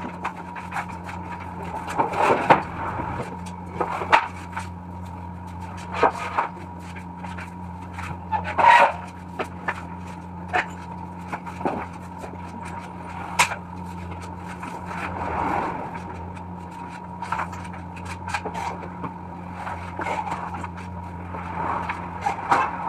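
Irregular knocks and short scrapes of particle board being handled and worked, over a steady low hum.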